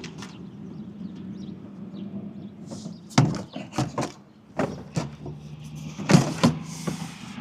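An engine idling steadily, with a run of sharp knocks and clunks starting about three seconds in.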